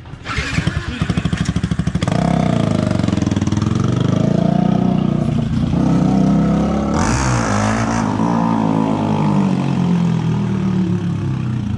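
A motorcycle with a very loud exhaust starting up and running, revved up and back down about seven seconds in.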